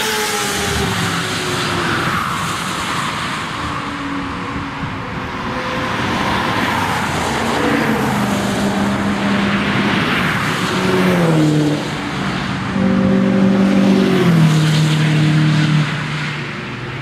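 Cars driving past at speed on a race track, one after another. Engine pitch climbs and drops back with gear changes about eleven seconds in, and the loudest pass comes a couple of seconds later.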